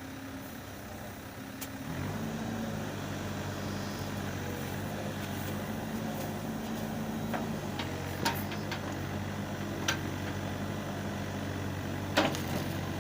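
Backhoe engine running, picking up revs about two seconds in and then holding steady, with a few short, sharp knocks in the second half.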